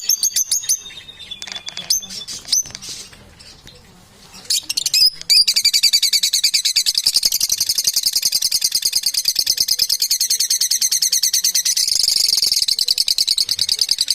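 Small birds chirping in short high calls. About five seconds in, a fast, continuous high-pitched trill starts and keeps going.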